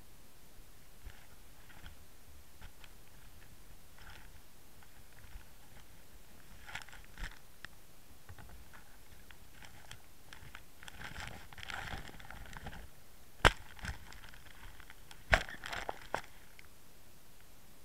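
Handling noise of a camera rubbing against fabric: scattered rustling and small clicks, thickening in the second half, with two sharp knocks a couple of seconds apart near the end.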